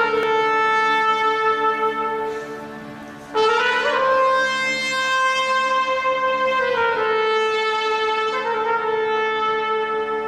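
Slow instrumental music: a brass-like wind instrument holding long notes over a low steady drone. The first note fades away and a higher note enters about three and a half seconds in, then steps down near seven seconds.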